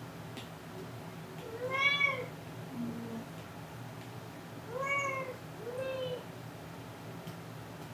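Domestic cat meowing three times, each meow rising and then falling in pitch: the loudest about two seconds in, then two more in quick succession around five and six seconds in.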